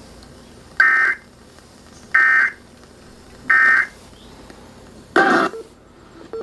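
Emergency Alert System end-of-message data bursts from a NOAA weather radio: three short, identical buzzy warbles of two-tone digital data, about a second and a half apart, marking the end of the severe thunderstorm warning. About five seconds in comes a single louder, lower-pitched burst.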